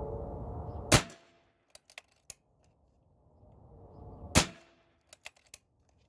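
Two shots from a pre-charged pneumatic air rifle, about three and a half seconds apart, each a sharp crack followed by a few light clicks.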